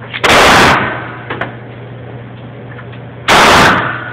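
Two gunshots about three seconds apart, each loud enough to overload the phone's microphone and trailing off in a short echo.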